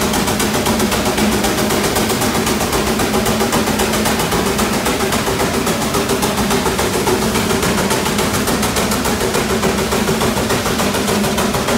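Steam traction engine working under load as it drags a weight-transfer pulling sled: a steady low drone with a rapid, even beat.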